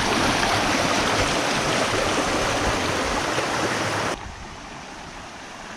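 Kanarra Creek's swift water rushing, a loud steady hiss that drops abruptly to a much quieter wash about four seconds in.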